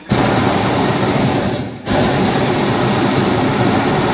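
Hot-air balloon's propane burner firing overhead: a loud blast that starts abruptly, cuts out for a moment just under two seconds in, then fires again.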